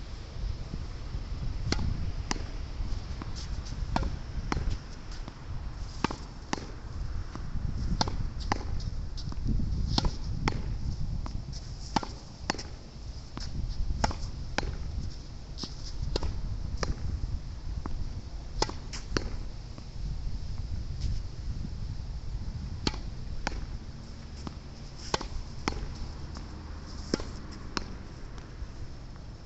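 Tennis ball hit against a practice wall, sharp racket and wall impacts coming irregularly about once or twice a second, over the low rumble of strong wind on the microphone.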